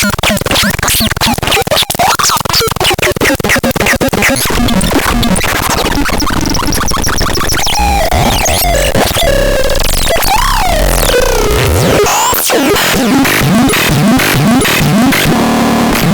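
Harsh, glitchy electronic noise from the BEXDEX. It starts as fast stuttering pulses, thickens into a dense wash with swooping pitch glides, and ends in a run of short rising chirps.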